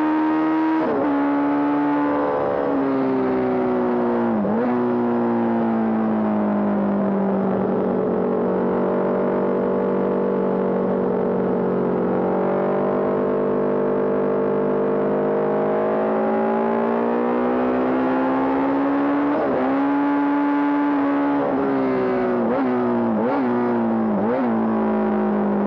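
Honda CB750 Four racer's air-cooled inline-four engine running hard under race load. The pitch falls and rises with the revs, with quick sharp dips at gear changes near the start and a cluster of them near the end, and a long, steadier stretch at lower revs in the middle.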